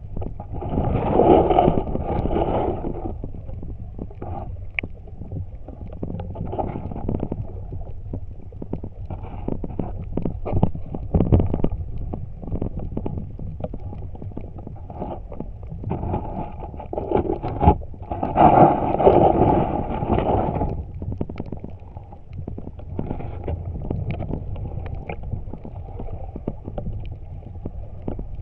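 Underwater ambience heard through a submerged camera: a steady low, muffled rumble of moving water with scattered small clicks, swelling into a louder gurgling rush twice, about a second in and again for a few seconds past the middle.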